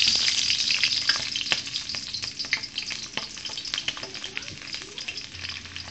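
Square-cut onion pieces sizzling and crackling as they hit well-heated oil in a frying pan. The sizzle is loudest at first and slowly dies down.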